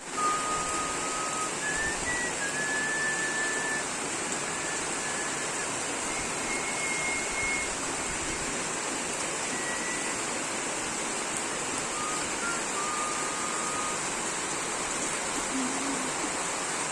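Tropical rain falling steadily, with a constant high insect buzz above it. A few long, level whistle-like notes come and go.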